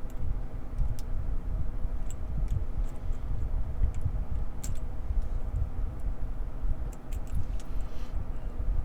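Lock picking on a Brinks padlock: a pick and tension tool scratch and click faintly against the pins, in about ten scattered light clicks, over a steady low rumble of handling noise.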